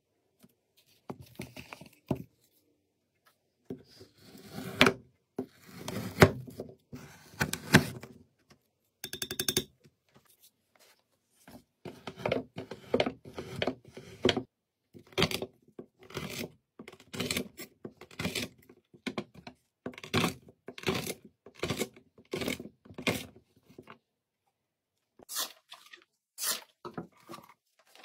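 Sharp Yakut knife slicing cured meat on a wooden board: a long run of even cuts, about two a second. Scattered scrapes and knocks come before it.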